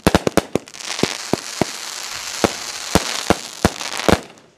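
Consumer firework cake going off: a quick run of sharp bangs and pops over a steady crackling hiss, dying away near the end.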